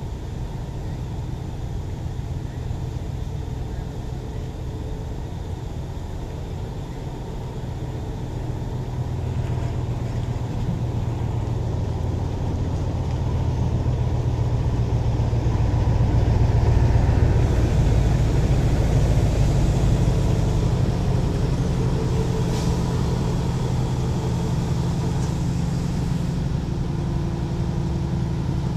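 Heavy diesel engines running in a low, steady rumble. The rumble grows louder from about a third of the way in and peaks around the middle as a Nissan Diesel container truck drives in under a crane-held container.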